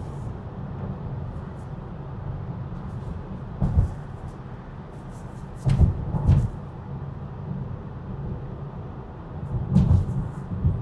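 Steady tyre and road noise inside a Tesla's cabin at highway speed, about 52 mph. It is broken by dull thumps: one about four seconds in, two half a second apart around six seconds, and another near the end.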